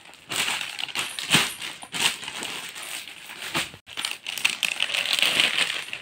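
Plastic packaging around folded suit fabric crinkling and rustling as the packs are handled and moved, with several sharper crackles.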